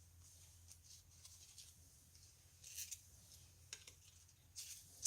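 Very quiet handling of die-cut paper ephemera pieces: a few faint, short rustles and soft taps over a steady low hum.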